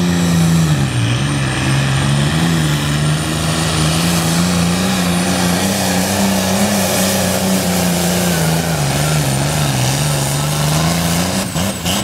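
Pro farm class pulling tractor's diesel engine running flat out under load as it drags the weight-transfer sled. Its pitch sags briefly about a second in and again near the end, then drops as the engine is throttled back when the pull stops.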